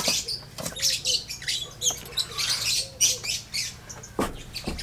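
Birds chirping in the background, with a few sharp clicks and knocks of metal parts being handled, and a dull thump near the end.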